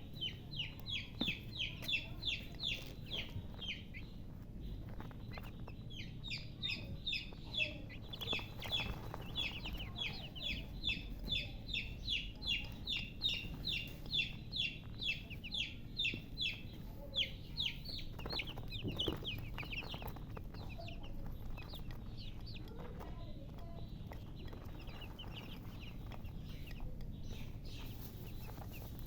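Baby chicks peeping: a fast run of short, high, downward-sliding peeps, about three or four a second, that thins out and grows fainter about two-thirds of the way through.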